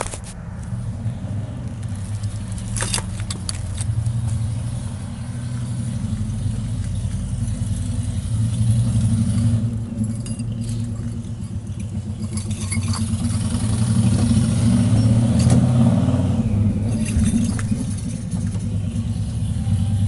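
Ford Crown Victoria Police Interceptor's V8 running with a steady low hum that swells louder twice, with scattered sharp pops and clicks. The popping is the sign of a broken rear axle that has worn down inside its housing.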